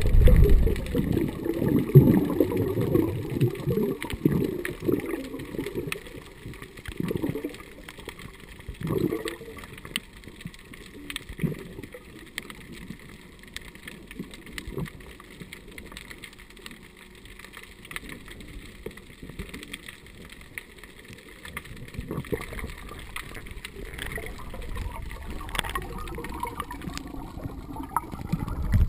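Water sloshing and gurgling as heard by a camera underwater, muffled, with bubbling. It is louder in the first ten seconds, drops low for a stretch, and builds again near the end.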